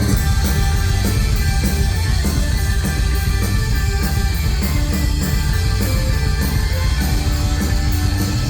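Rock band playing live at full volume: guitars, bass and a steady drum beat.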